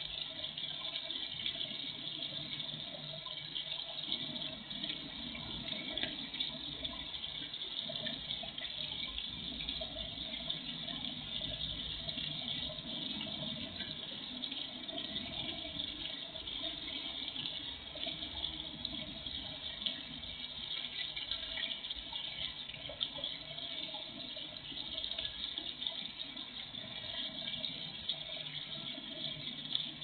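Small garden pond fountain splashing steadily, its spray falling back onto the pond's surface.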